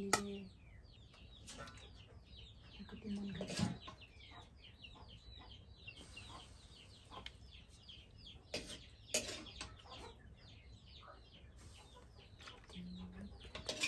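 Chickens clucking, with many quick high cheeps, and a few sharp clinks of a serving spoon on steel plates.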